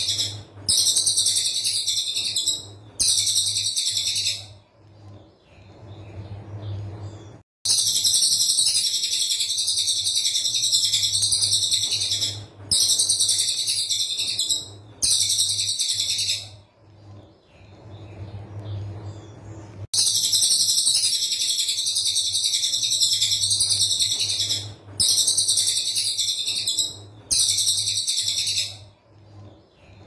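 Caged cililin coklat songbird singing its 'tembakan rapat' song: dense, harsh, high-pitched rapid-fire trills in loud bursts of one to five seconds with short breaks between them, over a steady low hum.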